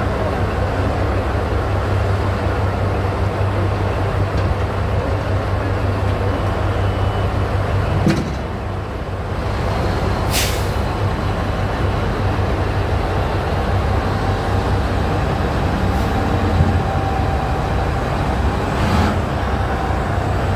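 Big diesel engine of a mining haul truck running steadily with a deep drone, and a brief hiss about halfway through.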